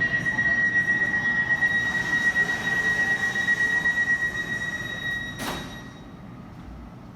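Elizabeth line train's wheels squealing on the rails in a steady, high-pitched screech over the train's running noise. The squeal cuts off with a sharp clunk about five and a half seconds in, leaving a quieter hum.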